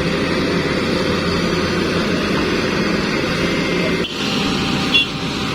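Heavy excavator engines running steadily under load as one excavator pulls another out of deep mud. The sound changes abruptly about four seconds in, and there is a short knock about a second later.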